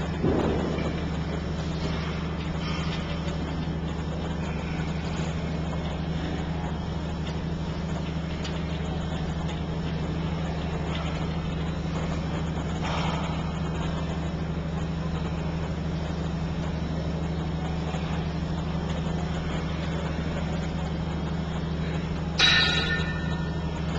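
Steady low mechanical hum, like a machine or ventilation running, with a brief louder sound with several pitches near the end.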